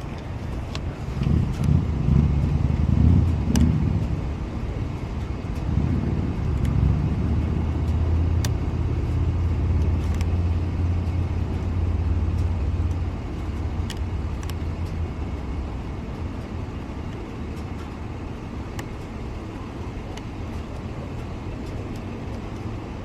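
A car engine idling steadily, with scattered small metallic clicks from a lock pick being worked in the car's door lock.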